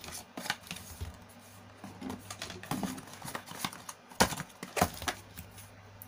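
A smartphone's cardboard box and contents being handled: scattered light taps, rustles and clicks, with two sharper knocks a little past four seconds in.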